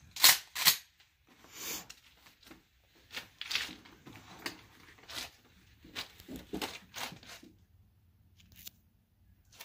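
Handling noise as a shotgun is settled onto a bench rest and shouldered. Two sharp knocks near the start are followed by a run of rustles and lighter knocks from clothing, rest bag and gun, which die away after about seven and a half seconds. No shot is fired.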